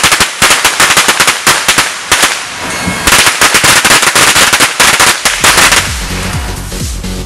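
Consumer fireworks going off in a rapid, dense crackle of firecracker pops with hissing sparks. The pops thin out after about five seconds, and background music with a steady beat comes in near the end.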